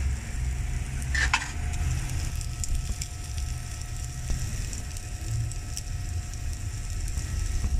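Hamburger patty and bread rolls sizzling on a hot flat griddle, a steady frying hiss over a low rumble, with a brief sharp clatter about a second in.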